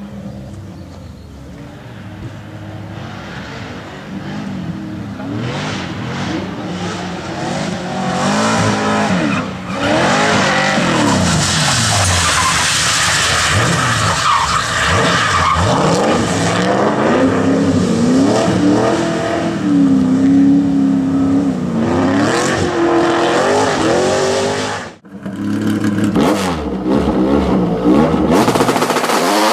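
Twin-turbo LS1 V8 in a Volkswagen Golf revving hard as the car drifts, its pitch rising and falling again and again, with tyres squealing. Near the end, after a brief break, a Ford Sierra's swapped-in 4.0 V6 runs and revs.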